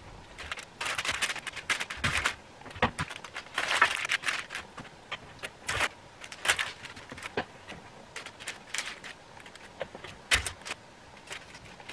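A spoon clinking and scraping against a mixing bowl and parchment paper rustling as batter is dropped in small mounds onto a lined baking tray: irregular short clicks and scrapes.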